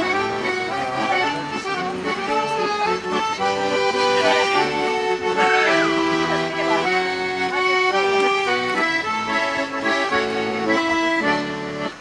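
Accordion playing a traditional folk dance tune in held chords and melody notes that change in steady succession.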